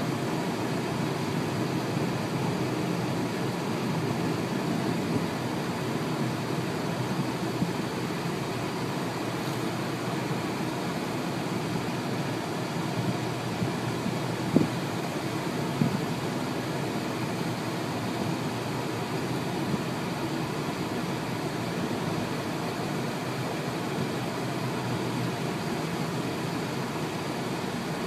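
Steady road and engine noise inside a moving car's cabin, with two short knocks about halfway through.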